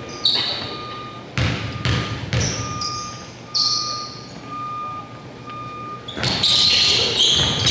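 Basketball game in a gym: a ball bounces several times and short high squeaks sound on the court, echoing in the hall. About six seconds in, loud crowd noise with voices rises sharply.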